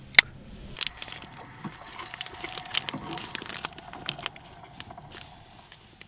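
A sharp click right after the start, then soft, irregular crinkling and rustling of a paper food wrapper as a sandwich is handled and eaten.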